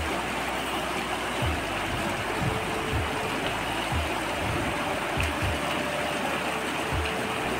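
Mountain river water rushing steadily over rocks, with a few brief low thumps scattered through it.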